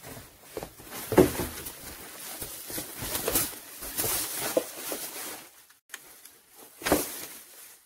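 Thin plastic carrier bags rustling and crinkling as they are lifted and handled, with a sharper burst of rustling near the end.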